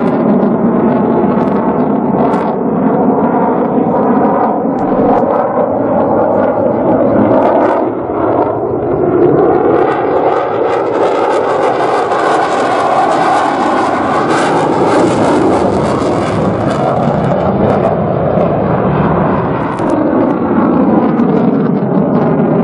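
USAF F-16 fighter jet's engine noise as it flies a display pass, loud throughout. Pitch lines in the sound slide as the jet moves, and the rush grows brighter from about ten to seventeen seconds in as the jet passes close.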